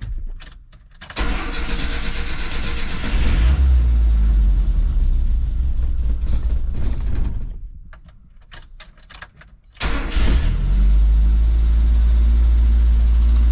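Mazda B2000 pickup's carbureted four-cylinder engine cranking and catching about a second in, revving and running for a few seconds, then dying. It is cranked again and fires back up near the end, settling to a steady idle. The owner takes the stalling for a carburetor problem.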